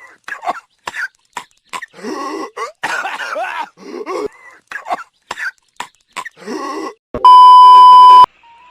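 Person coughing repeatedly in a string of short, harsh bouts. Near the end a loud steady electronic beep sounds for about a second.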